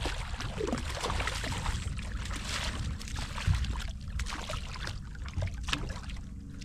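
A hooked fish splashing at the water's surface right beside a kayak as it is brought in and grabbed by hand, with a steady low rumble underneath.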